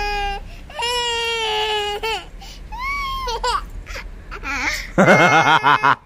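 Toddler girl crying in a series of long, held wails, the loudest and most strained one near the end: a tantrum at being refused a mobile phone.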